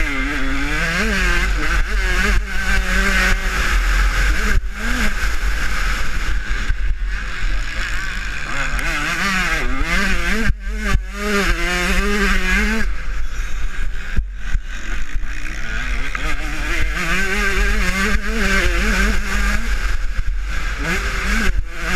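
Husqvarna TC125 two-stroke motocross bike's engine revving up and down hard as it is ridden around a dirt track, heard close from an onboard camera, with a steady low wind rumble on the microphone. The engine note dips briefly a few times midway.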